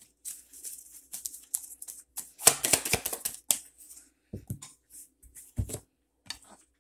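Tarot cards being handled by hand: irregular rustling, flicks and clicks, densest a few seconds in, with a few soft low thumps near the end.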